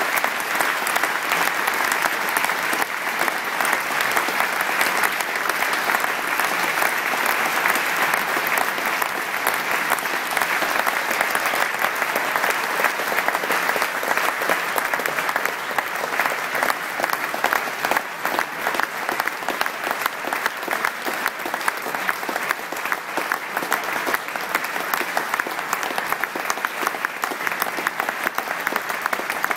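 A large audience applauding, a dense and steady sound of many hands clapping.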